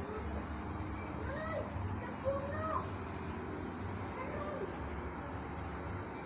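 Night ambience: a steady high insect drone and a low, uneven rumble, with a handful of short, faint rising-and-falling calls spread through it.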